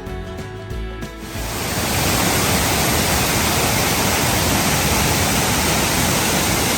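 Background music ends about a second in, giving way to the loud, steady rush of a small waterfall running at high flow after heavy rain.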